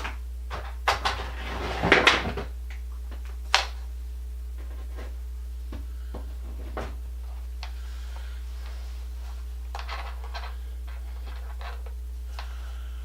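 Hard parts being handled: a few knocks and clicks, a clattering cluster about two seconds in and a single sharp click a moment later, then only faint clicks, over a steady low hum.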